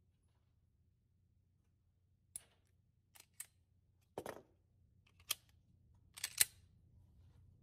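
A handful of faint, short clicks and taps, spaced irregularly over several seconds against a quiet background.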